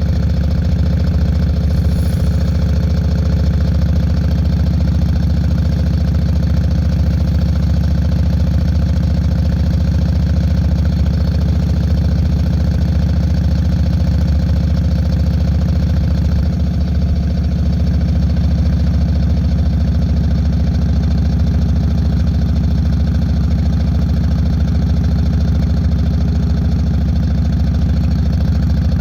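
Yamaha Road Star 1600's air-cooled V-twin, breathing through Vance & Hines Longshots pipes, running steadily with a low, even exhaust note that dips briefly a little past halfway.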